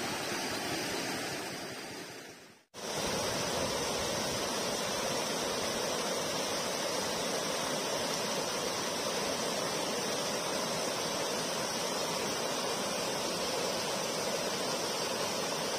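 Floodwater rushing in a steady, even wash of noise. It fades out about two and a half seconds in. After a brief silence, fast water pouring across and over the edge of a flooded road causeway carries on steadily.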